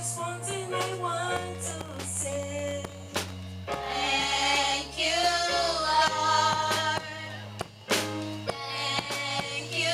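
Church choir singing a gospel song with band accompaniment: held bass notes under the voices and regular drum hits.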